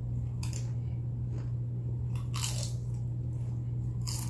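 Close-up crunching of nacho tortilla chips being bitten and chewed: a few crisp crunches, the loudest about two and a half seconds in, over a steady low hum.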